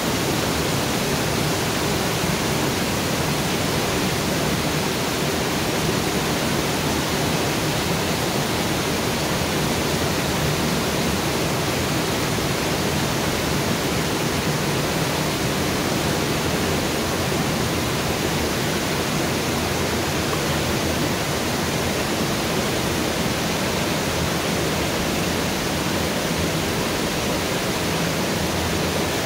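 Water gushing through the open paddles of a canal lock's upper gates and churning in the lock chamber, a steady rushing sound as the lock fills.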